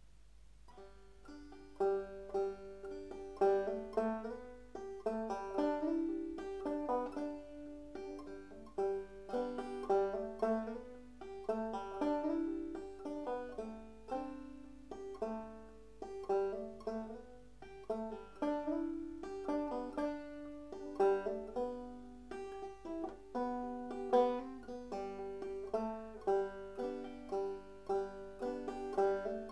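Solo five-string banjo played clawhammer style in open G (gDGBD) tuning, picking out a slow Scottish air, which the player transcribed from the highland bagpipes. The playing starts about a second in.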